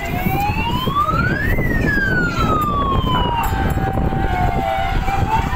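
Wailing siren on a children's fairground ride, rising over about a second and a half, falling more slowly, then holding one steady tone for the second half. Steady low background noise runs under it.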